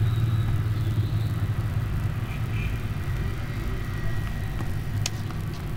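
Steady low background rumble with a faint high whine over it, and a single faint click about five seconds in.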